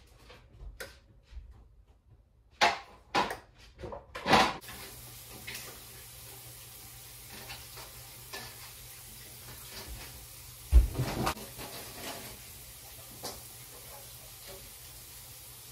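Metal baking pans clattering as they are handled, with four sharp clanks a couple of seconds in and one heavier clunk later. A steady hiss of a running kitchen tap comes in about five seconds in.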